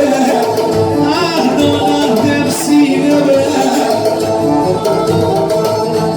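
Tallava music playing: a melody over a steady low beat.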